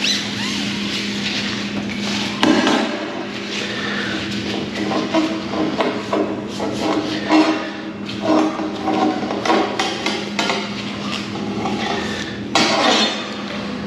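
Irregular metal clanks and taps as a stainless steel measuring rod knocks against the manway rim and shell of a bulk milk tank, over a steady hum.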